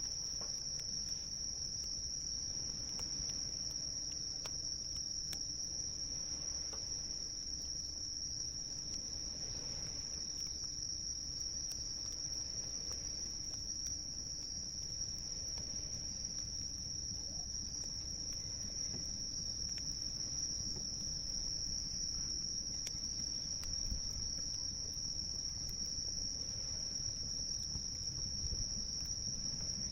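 Insects singing in one continuous, steady high-pitched trill, with faint scattered crackles from a campfire beneath it.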